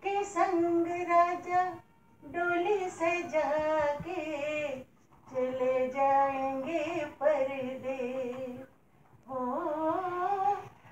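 A single high voice singing unaccompanied: four sung phrases with short pauses between them, the notes held and wavering.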